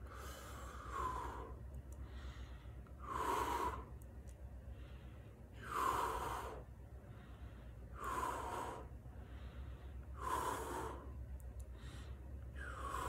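A man breathing heavily, with about six forceful, hissy breaths roughly every two and a half seconds.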